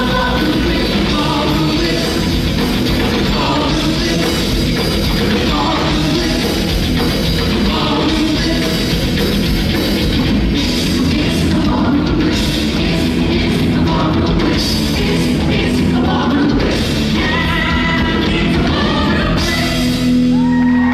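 Loud rock music with a singing voice, in a heavy, metal-like style, played at a live stage show.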